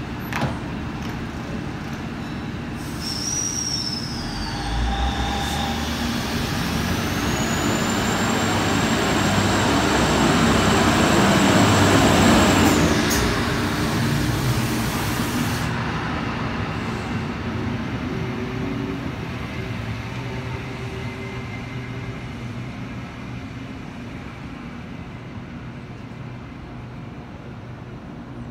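Endeavour-class diesel railcar set pulling away from a platform: the engine and running noise build up and are loudest about twelve seconds in as the cars pass close by, then fade. A short falling high tone a few seconds in and a long steady high whine under the build-up come with the departure.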